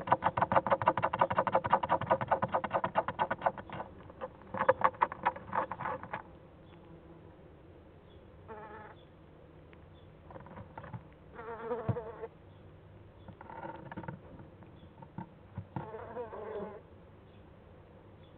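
Owl chick calling: a rapid buzzing trill for the first six seconds, then several shorter wavering bouts with pauses between.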